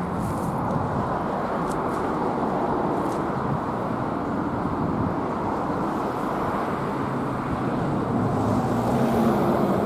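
Steady vehicle noise of running cars and road traffic, an even rumble that rises slightly near the end.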